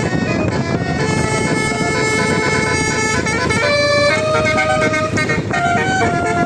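Bus telolet horn, a multi-tone air horn, playing a tune of held notes that step to new pitches every second or so, over a low rumble.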